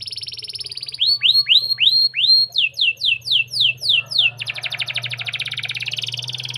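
Canary singing a continuous song built of changing phrases of fast-repeated notes: a quick trill, then swooping notes about a second in, then rapid falling sweeps, then a long buzzy rattle from about four seconds in.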